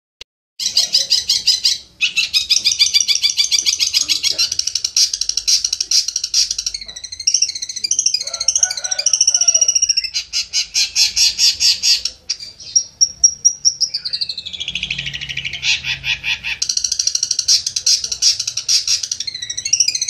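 Long-tailed shrike (cendet) singing its contest song: long bouts of fast, rapid-fire trilled notes, broken by a few short pauses, with twisting varied phrases in the middle and a long falling sweep about two-thirds of the way through.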